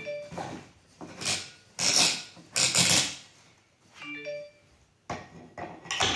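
Aluminium telescopic RV table leg being worked by hand: three loud, short scraping clunks in quick succession, then a few smaller knocks.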